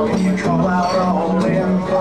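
Live acoustic guitar music: an instrumental passage of picked notes over a steady, repeating bass-note pattern.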